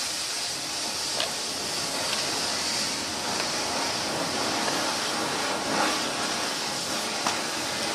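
Steady hiss of background noise with a few light clicks.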